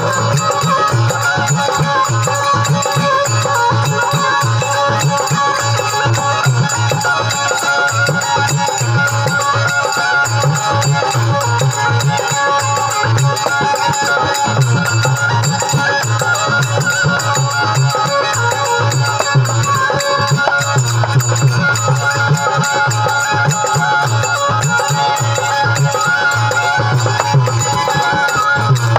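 Rajasthani devotional folk music: a steady instrumental melody over a quick, even drum beat with rattling percussion.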